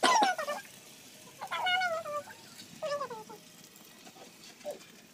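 A cat meowing about four times, each call sliding down in pitch; the first is the loudest and the last is faint.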